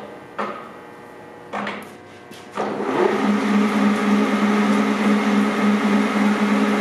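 Leblond Regal gear-head engine lathe: a few clunks as the speed is changed, then about two and a half seconds in the spindle is engaged and the headstock gearing runs up to a steady, even drone at 825 RPM.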